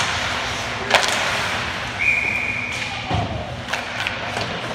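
Ice hockey play: sharp cracks of stick and puck, a single short steady referee's whistle blast about two seconds in, then a dull thump against the boards.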